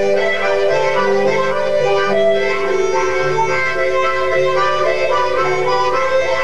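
Harmonica and electronic keyboard playing a Christian song together, with held notes over keyboard chords and a bass line that steps from note to note.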